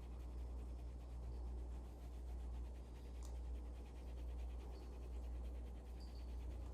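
Faint back-and-forth rubbing of a towel on leather, scrubbing in leather cleaner, the strokes swelling and fading about once a second over a steady low hum.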